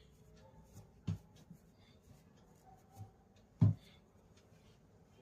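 Small objects being handled: faint light clicks and rustles, with two soft thumps, one about a second in and a louder one between three and four seconds in.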